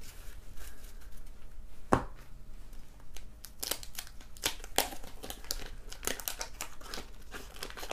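Trading cards handled and shuffled, with a sharp tap about two seconds in, then the paper wrapper of a 1991 Fleer basketball card pack crinkling and tearing as it is ripped open, a rapid run of crackles.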